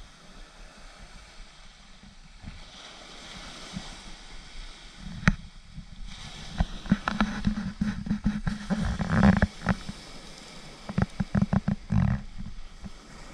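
Wind gusting across the microphone over surf breaking on the shingle, with a run of irregular knocks and bumps from about five seconds in.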